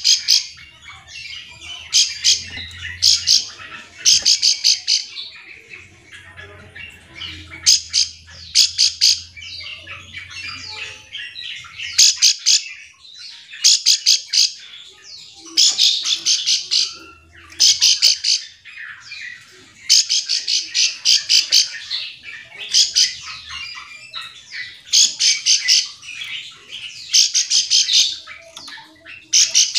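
Plain prinia calling: short bursts of rapid, harsh rasping notes repeated every second or two. It is a call used to provoke other prinias into answering.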